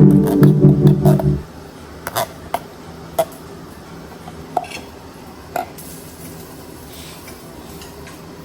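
Background music cuts off about a second and a half in, followed by a handful of light, separate clinks and knocks of kitchenware being handled, each ringing briefly.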